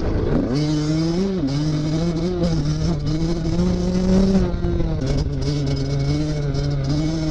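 KTM SX 85's two-stroke single-cylinder engine running under way. Its pitch dips at the start, climbs gradually to a peak a little over four seconds in, then drops back and holds steady.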